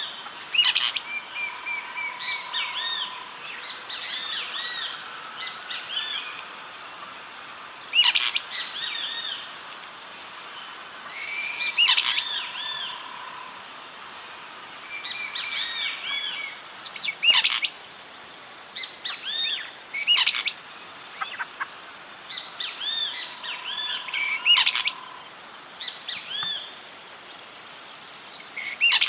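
Morning chorus of several Atlantic Forest bird species calling and singing together, among them great kiskadee, highland elaenia, white-shouldered fire-eye and southern beardless-tyrannulet. A loud call stands out about every four seconds over many overlapping chirps and trills. A long steady whistle comes a few times.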